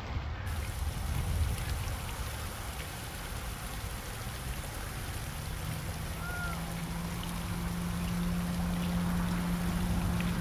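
Water running and splashing from a small decorative water wheel's wooden chute into a pond, a steady trickling rush. A low steady hum comes in about halfway, and a single brief chirp sounds near the middle.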